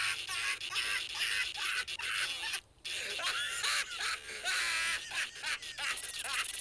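High-pitched laughter in quick, repeated peals, with a brief pause about midway.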